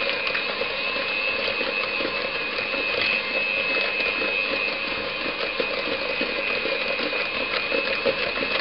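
Electric hand mixer running steadily with a high motor whine, beating butter and sugar together to a creamy texture.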